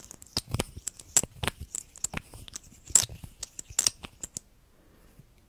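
Close-miked clicks and taps of a silver lipstick tube being handled. It is a quick, irregular run of sharp clicks that stops about four and a half seconds in.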